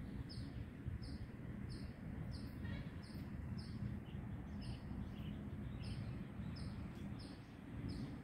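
A small bird repeating a high, short, falling chirp about twice a second, with a few fainter, lower calls now and then, over a steady low rumble.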